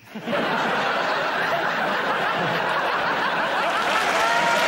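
Studio audience laughing. The laughter starts suddenly a moment in and holds steady, with a few individual laughs standing out near the end.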